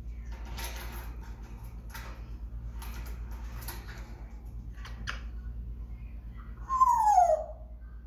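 African grey parrot making a few short scratchy sounds, then one loud whistle that falls in pitch near the end.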